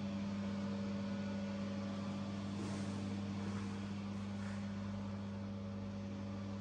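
A steady low machine hum, one even tone with a higher overtone, that does not change.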